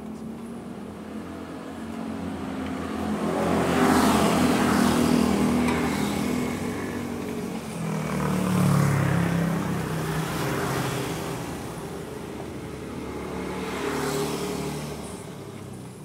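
Motor vehicle engines passing along the street, the sound swelling and fading three times: loudest about four seconds in, again about nine seconds in, and a smaller rise near the end.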